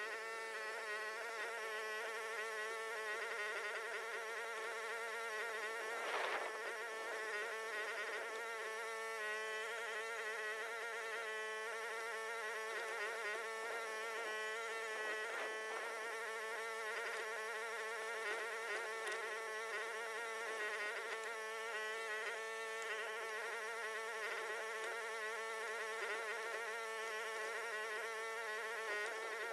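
Huayee HY14C mini excavator running steadily under load as it digs out a stump, a continuous buzzing engine and hydraulic drone. A single sharp knock or crack about six seconds in.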